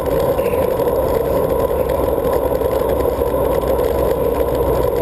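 Steady, muffled rush of wind and tyre noise from a moving bicycle, picked up by a GoPro Hero camera on the handlebars.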